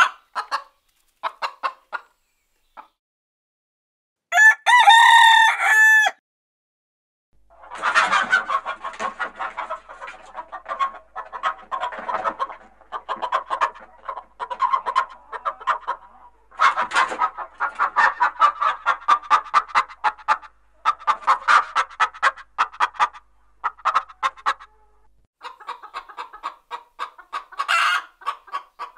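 Chickens: a rooster crows once for about two seconds, a few seconds in. Then hens cluck in quick, dense runs with short pauses for the rest of the time.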